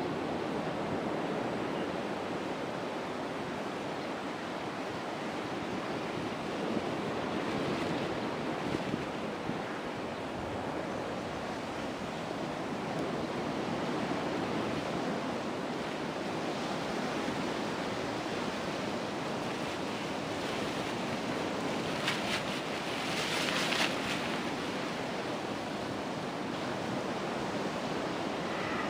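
Steady wind rushing over the microphone, with two brief, hissier gusts a little over twenty seconds in.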